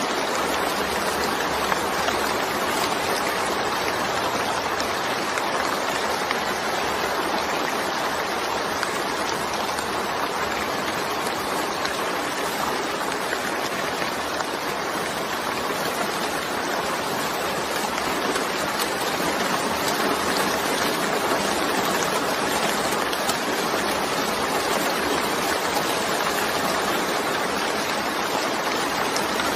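Steady rain falling, an even rushing hiss that holds at one level with no breaks.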